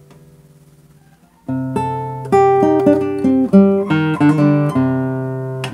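Nylon-string classical guitar played solo, fingerstyle: a held note dies away softly for about a second and a half, then a melody of loud plucked notes and chords sets in.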